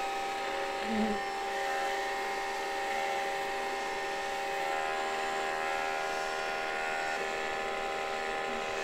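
Small electric motor of a cordless handheld blower running with a steady whine, its nozzle directed into a cluster of Japanese honey bees.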